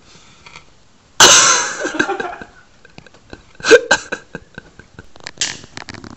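A person's sudden loud vocal outburst about a second in, fading over about a second, then scattered clicks and knocks.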